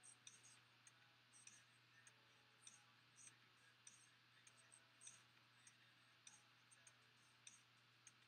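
Near silence: room tone with a faint steady low hum and faint, irregular small clicks, about two a second.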